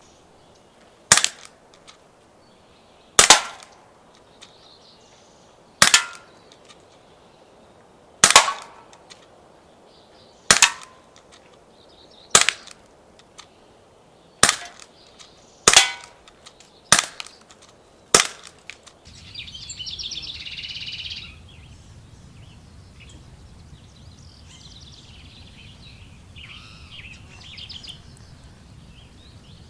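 Ten single gunshots from target plinking, spaced one to two and a half seconds apart and coming quicker toward the end. Afterwards birds chirp.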